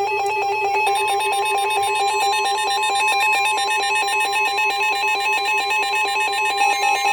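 Electronic emergency alert alarm: a loud, rapidly pulsing tone that rings like a telephone bell and holds steady throughout.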